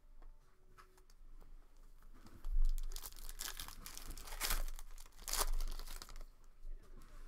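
Foil trading-card pack wrapper being torn open and crinkled by hand, crackling in several bursts over a few seconds.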